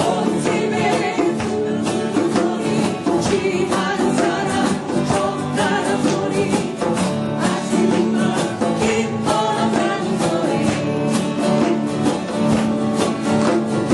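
Band music led by strummed acoustic guitar, keeping a steady rhythm.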